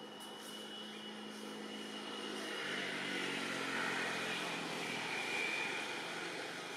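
A distant engine drone passing by: it swells, drops in pitch about two and a half seconds in, then fades away.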